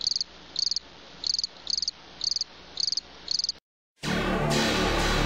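Cricket chirping: short, high, pulsed chirps about twice a second. It cuts off suddenly, and after a brief silence music starts about four seconds in, louder than the chirps.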